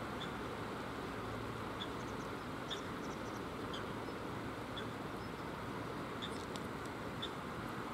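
Steady rush of a shallow river running over a stony bed in the rain, with short, faint, high peeps scattered through it every second or so.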